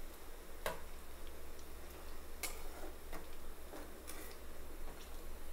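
Pakodi deep-frying in hot oil in a kadai, a steady sizzle, with a metal spoon clicking and scraping against the pan about five times as the fritters are stirred.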